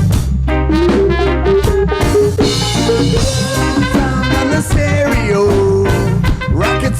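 Live reggae band playing an instrumental passage without vocals: drum kit and bass under a melody held on sustained notes, with a rising slide near the end.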